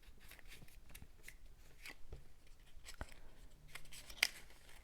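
Cardstock pieces being handled and adjusted by hand: scattered light paper rustles and small taps, with one sharper tap a little past four seconds in.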